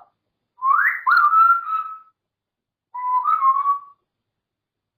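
African grey parrot whistling two phrases: a quick upward slide into a held note, then a second shorter whistle about a second later that steps slightly up in pitch.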